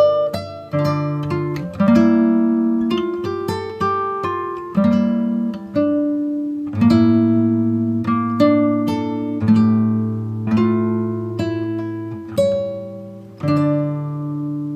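Background music: a plucked acoustic guitar, with a new note or chord struck about once a second and left to ring.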